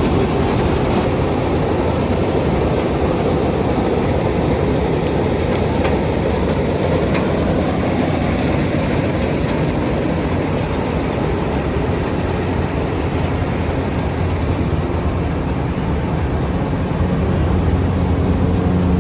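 Diesel engine of farm machinery running steadily at constant speed, loud and unchanging.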